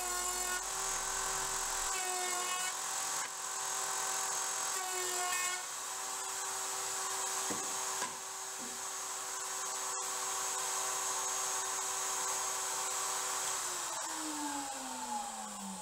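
Table-mounted wood router running steadily as a board is fed over the bit to cut flutes, its tone wavering briefly a few times under the cut. Near the end it is switched off and its pitch falls as it spins down.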